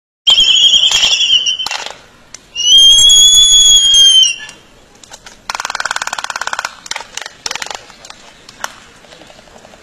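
Laysan albatrosses calling in their courtship dance: two long, high whistled calls, the second arching slightly in pitch. Then, about five and a half seconds in, a fast rattle of bill clacking, followed by scattered sharp clicks.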